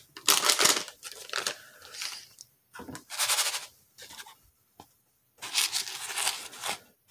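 Dry paydirt gravel being raked and stirred by hand in a plastic gold pan: scratchy rasping in short bursts with brief pauses, a single click about five seconds in, and a longer stretch of rasping near the end.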